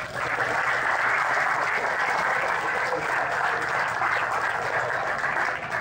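Audience applauding: a steady round of clapping that starts at once and dies away near the end.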